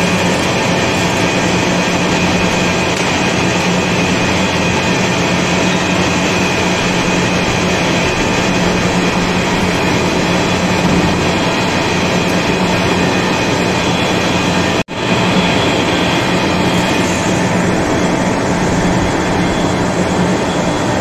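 Heavy-duty vertical lathe running, its big table turning a large steel ring under the cutting tool: a loud, steady mechanical drone with a low hum. The sound cuts out for an instant about fifteen seconds in, then carries on unchanged.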